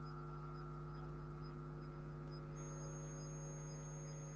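Steady electrical mains hum, a low buzz with many overtones, with a faint high ticking about three times a second. A thin high whine joins a little past halfway.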